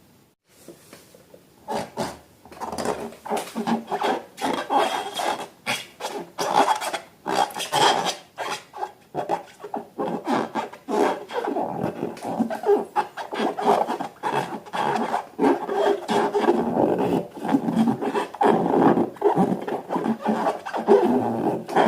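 Slime being kneaded and stretched by hand, a dense run of irregular sticky crackles and squelches that starts about a second and a half in.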